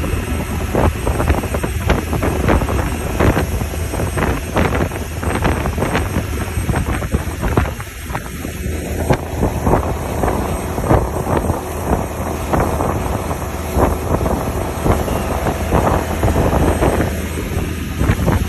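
Motorboat running under way towing a parasail: a steady low engine hum under a rush of wake water, with wind buffeting the microphone in irregular gusts.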